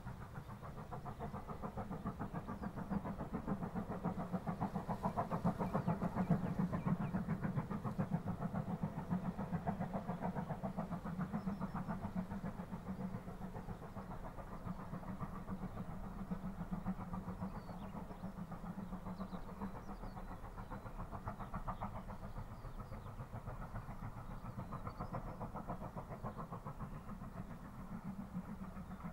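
Exhaust beats of GWR 9300-class 2-6-0 steam locomotive No. 9351, heard from across the valley as it works a train. It is a fast, even chuffing that swells a little early on and then holds steady.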